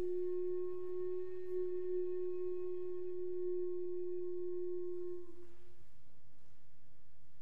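Recorder holding one long, steady low note, nearly a pure tone, as part of a contemporary solo piece; the note dips slightly and fades out about five seconds in.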